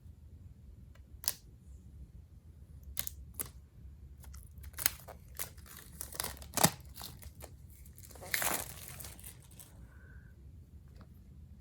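AirPods Pro retail box packaging being handled and opened: a series of sharp clicks and taps, then a tearing, crinkling sound for about a second and a half near the end, like a pull-tab seal or wrap being torn.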